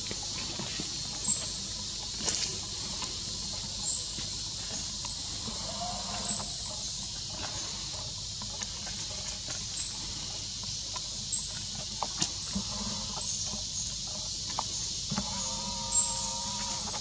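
A steady high insect drone fills the forest, with scattered rustles and ticks of dry leaves. There is a short monkey call about six seconds in and a longer, steadier one near the end.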